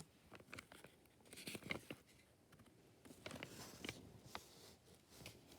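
Paper pages of a picture book being handled and turned: soft crinkly rustles, mostly about a second and a half in and again after three seconds, among scattered small clicks.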